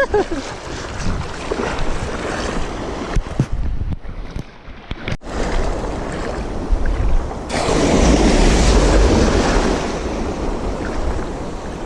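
Surf breaking on a beach, with wind buffeting the microphone. A louder wave washes in for a couple of seconds about two-thirds of the way through.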